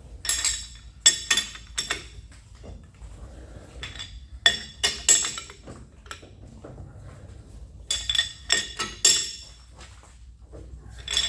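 Chuck key and cheater bar clinking and knocking against a lathe chuck as the jaws are snugged down: sharp metal strikes with a bright ring, in three clusters, near the start, about four to five seconds in, and about eight to nine seconds in.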